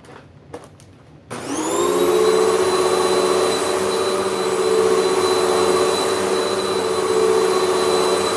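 Hoover WindTunnel MAX upright vacuum cleaner switched on about a second in, after a few light clicks. Its motor spins up with a rising whine, then runs steadily.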